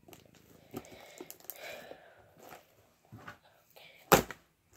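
Sticky clear glitter slime being squished and stretched by hand: wet clicking, crackling and popping, with one loud smack about four seconds in.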